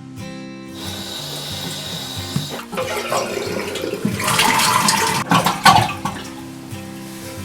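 Toilet flushing: water rushes loudest for a second or two around the middle, under background guitar music.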